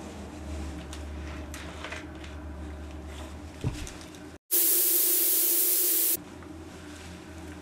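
A sudden loud hiss of gas escaping from a pipe, lasting about a second and a half, cutting in and off abruptly. Before it there is a low steady hum with faint ticks and a single knock.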